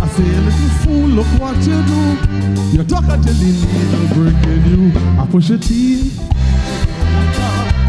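Live calypso band playing, with saxophones, keyboard, bass and drum kit on a steady beat, and a male singer singing into a microphone over it.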